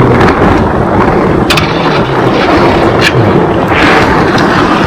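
Steady loud rumble of wind buffeting the camera microphone, with a couple of sharp clicks about one and a half and three seconds in.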